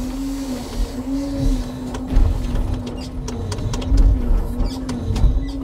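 Timber truck's engine running at a steady raised speed, its pitch dipping slightly about once a second as if under load. Low thumps and a scatter of short knocks come over it, more of them in the second half.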